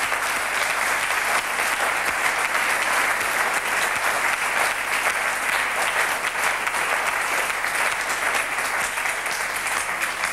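Studio audience applauding steadily, many hands clapping.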